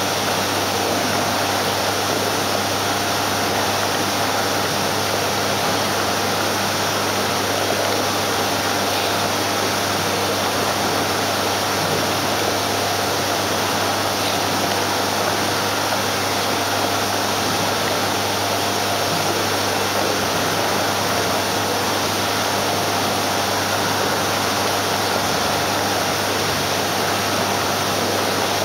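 Aquarium pumps and filtration running: a steady low hum under an even rushing hiss.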